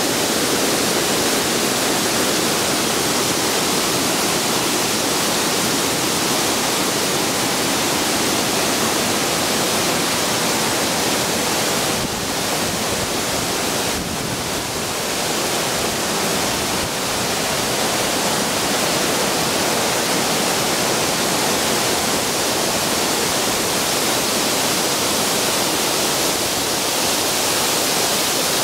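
Pendleton Falls, a high waterfall on Pendleton Creek, rushing in a loud, steady roar of falling water, easing off slightly a little before midway.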